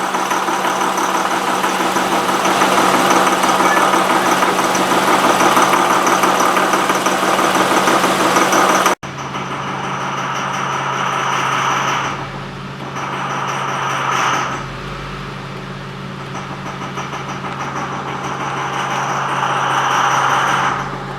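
2005 Honda Pilot's V6 idling roughly in gear with a diesel-like clatter. After a cut about nine seconds in, the idle sags and picks back up on its own a couple of times. The engine has stored system-too-rich codes (P0172, P0175).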